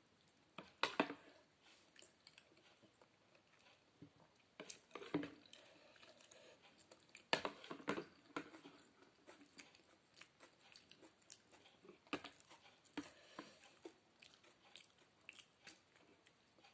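A person chewing and eating spaghetti-noodle sopas close to the microphone: soft, wet mouth sounds with a few louder sharp clicks, about a second in, near five seconds, twice around eight seconds and again near thirteen seconds.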